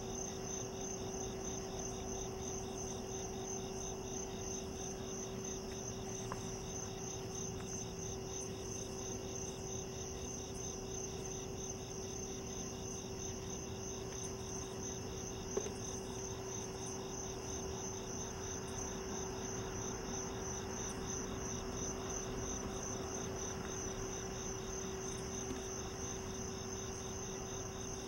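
Crickets chirping in a steady night chorus, a fast even pulsing trill that carries on throughout, over a steady low hum.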